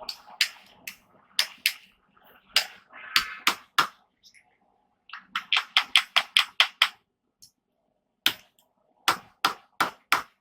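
Hand hammer striking hot steel on an anvil: irregular single blows, then a quick run of about a dozen strikes in the middle, then a few more blows near the end, as the handle is worked tighter around the small rivet header.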